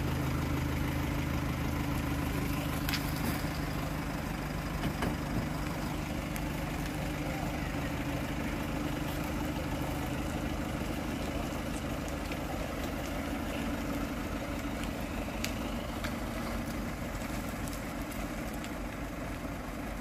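Mitsubishi Colt L300 pickup's diesel engine running steadily at low revs as it crawls slowly through mud, growing gradually fainter as it moves away.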